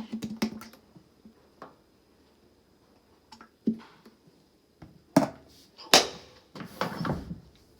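Scattered clicks and light knocks from hands handling a front-loading washer's detergent dispenser and a detergent bottle, with a short scraping rustle near the end.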